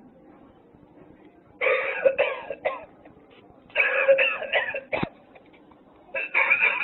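Lung-shaped novelty coughing ashtray playing its coughing sound: three bouts of rapid, raspy coughs, with a single sharp click between the second and third.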